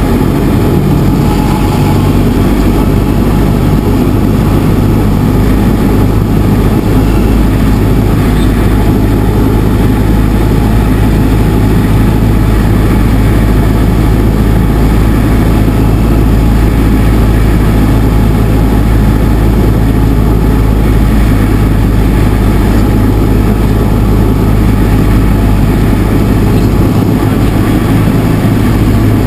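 Cessna 172RG's piston engine and propeller running at a steady low drone, heard inside the cockpit, throttled back for a simulated engine failure on the landing approach.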